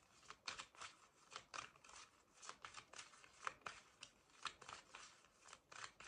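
A deck of oracle cards being shuffled by hand: faint, quick card-on-card strokes, about three a second.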